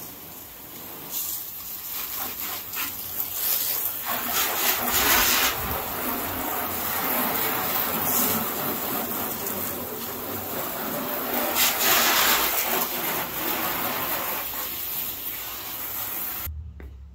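Water spraying onto a car's body during a wash, a steady hiss that swells louder twice as the spray moves. It cuts off suddenly near the end.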